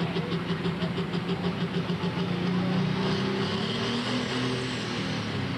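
Pro stock pulling tractor's turbocharged diesel engine running hard under full load, pulling the sled. Its pitch climbs about two and a half seconds in, and a high whine joins it.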